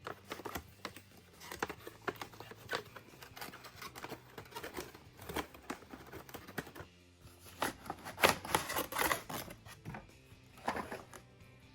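Irregular clicks, taps and rustles of a plastic toy cash register and its packaging being handled, with a busier flurry of clicks about eight seconds in, over quiet background music.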